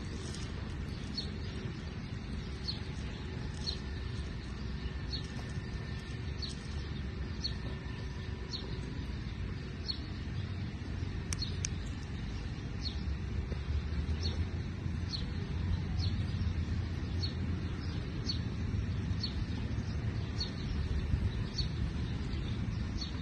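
A bird repeating a short, high chirp about once a second, over a low rumble of wind on the microphone that grows louder in the second half.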